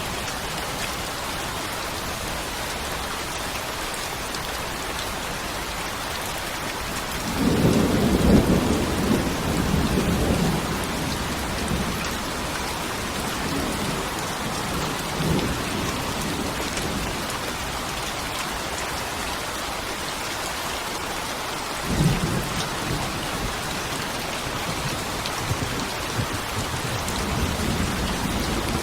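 Steady heavy rain with thunder rolling through it: a long, loud rumble about a quarter of the way in, a sharper clap that starts suddenly about three quarters in, and smaller rumbles in between and near the end.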